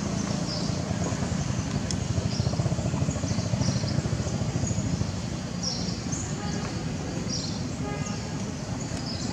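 Outdoor ambience: a steady low rumble, with short high chirps repeating every second or so.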